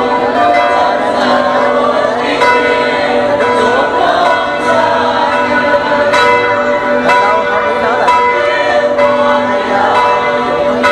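Church bells ringing continuously, many overlapping tones with fresh strikes throughout, over the chatter of a large crowd.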